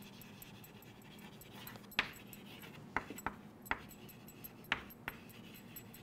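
Chalk tapping and scraping on a chalkboard during writing: about six short, sharp clicks from about two seconds in, over a faint room hiss.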